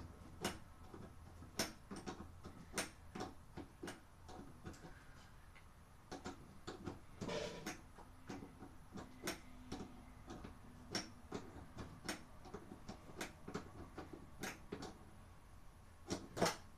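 Wrench working a fitting on a refrigerator's water supply line: a string of irregular sharp metal clicks and clinks, with a louder pair near the end.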